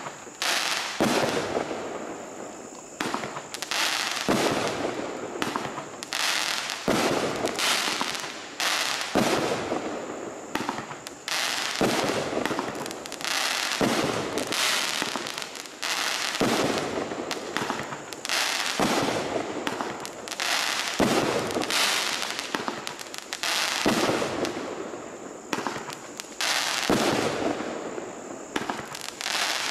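Firework cake (T-Sky 'Black Blade', 16-shot, 200-gram) firing shot after shot, with a sharp bang about every second and each one trailing off briefly.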